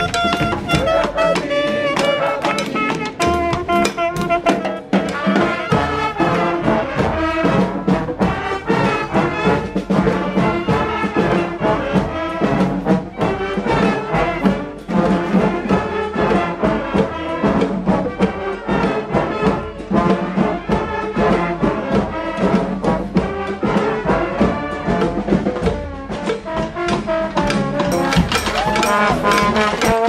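Street band playing live: a horn section of trombones and saxophones over snare and bass drums, without a break.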